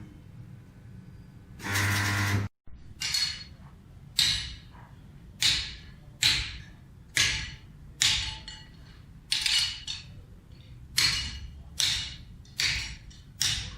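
Metal being struck repeatedly with a hammer: about fourteen sharp blows at an uneven pace, each ringing briefly. They follow a short loud buzz about two seconds in.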